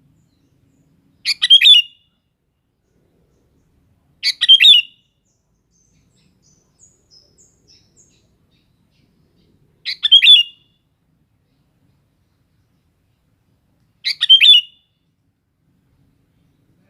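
Sooty-headed bulbul (kutilang) singing four short bubbly phrases, each well under a second long and spaced a few seconds apart. A few faint high chirps come between the second and third phrases.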